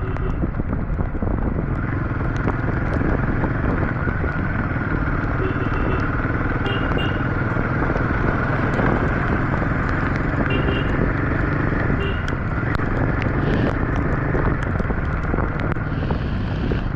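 Royal Enfield 452 single-cylinder motorcycle engine running steadily, with wind rushing over the microphone.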